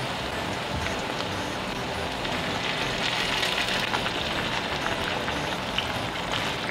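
Sauce sizzling and bubbling in a frying pan, a steady fine crackle that grows a little stronger about three seconds in.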